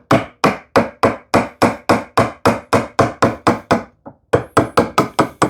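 Mallet striking a chisel in quick, even blows, about three to four a second, with a brief pause about four seconds in, splitting waste off a tenon cheek.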